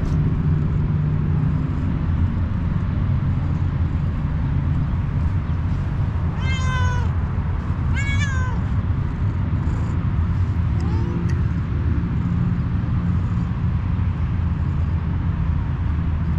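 Tortoiseshell cat meowing: two short, high meows with falling ends about a second and a half apart, then a fainter one a few seconds later, over a steady low rumble.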